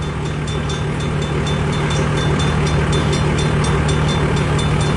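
Cars of a long Canadian National mixed-freight train rolling past: a steady rumble of steel wheels on the rails.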